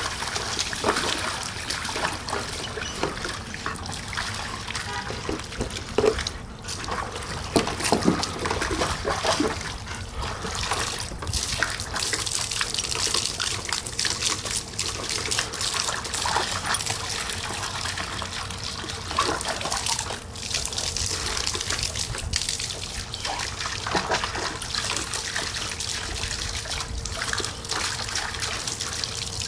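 Garden hose water spraying and splashing into a plastic kiddie pool, with irregular louder splashes as a dog bites and laps at the jet.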